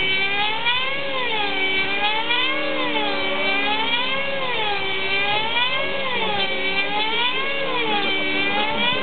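Radio-controlled model helicopter in flight, its engine and rotor whine wavering smoothly up and down in pitch about once a second.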